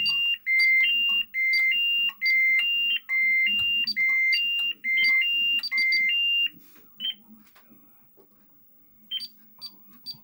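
Fire alarm sounder giving its two-tone warning, a high and a low beep alternating with a pair a little under every second. It cuts off about six and a half seconds in, and a few short single beeps follow near the end.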